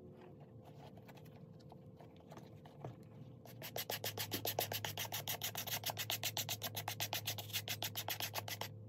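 A rubber-nubbed suede brush scrubbed fast back and forth over a suede handbag, lifting dirt from the nap. A few light strokes at first, then about three and a half seconds in a run of quick, even strokes, about eight a second, that stops abruptly near the end.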